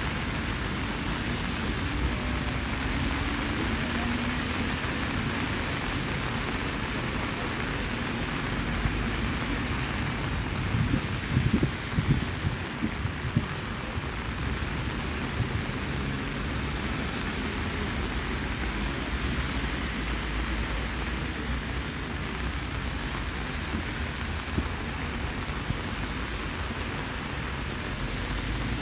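Steady rain, with a low rumble underneath and a short cluster of louder bumps about eleven to thirteen seconds in.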